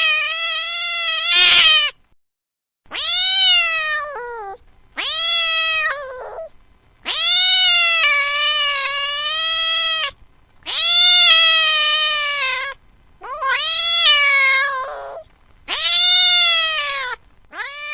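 Domestic cat meowing over and over: a run of about seven long, drawn-out meows, each lasting one to three seconds with short pauses between them. A brief harsh burst cuts in about a second and a half in.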